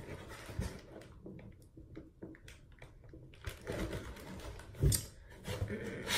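Rustling and knocking of items and packaging being handled and rummaged through, with a louder thump about five seconds in.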